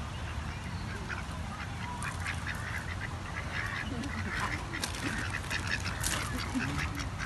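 White domestic ducks quacking, a run of short calls starting about two seconds in.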